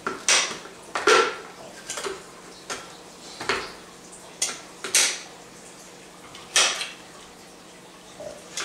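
Kitchen knife knocking on a cutting board as vegetables are cut, in about eight irregular strokes roughly a second apart.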